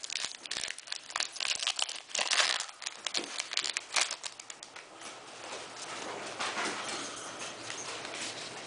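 Foil Pokémon trading-card booster pack crinkling and tearing open, a dense run of sharp crackles for the first few seconds. After that, a softer steady rustle as the cards are slid out and handled.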